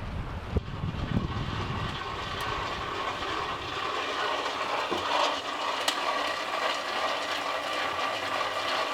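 Steady mechanical hum with a held whine, wind noise on the microphone in the first couple of seconds.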